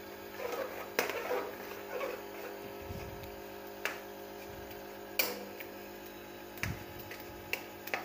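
A metal spoon mashing and scraping tomato masala in a steel karahi, with a few sharp clicks of the spoon against the pan.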